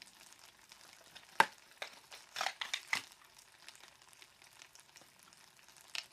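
Pop Rocks popping candy crackling as it dissolves in water: a faint, continuous fizzy crackle with a few sharper clicks, the loudest about a second and a half in and a quick cluster around two and a half to three seconds.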